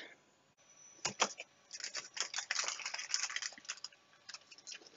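Clear plastic packaging crinkling and crackling as it is handled: an irregular run of sharp crackles and clicks starting about a second in, busiest in the middle and thinning out near the end.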